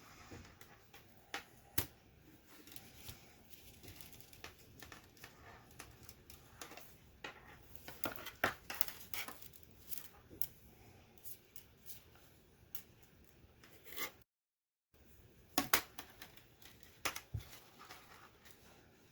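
Small plastic clicks and handling noises, irregular and faint, as Commodore 64 keyboard parts are fitted back into place by hand.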